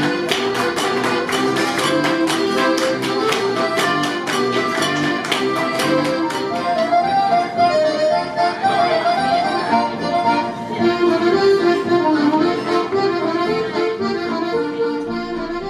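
Accordion music in a traditional folk style, with a quick percussive beat over the first several seconds.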